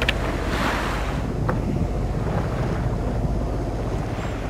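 Wind buffeting the microphone over the wash of sea water, with a steady low hum underneath and a couple of faint knocks.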